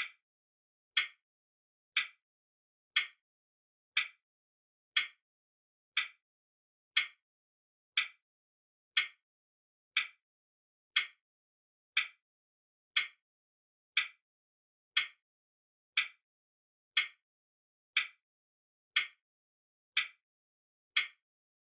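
A clock ticking: one short, sharp tick every second, evenly spaced, with silence between the ticks.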